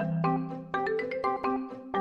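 Background music: a bouncy, repeating melody of short struck notes over a held low note.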